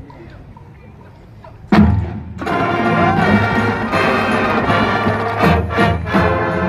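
Marching band: after a quiet opening, a sudden loud drum-and-brass hit comes about two seconds in. The full brass section and drum line then play loud sustained chords punctuated by drum strokes.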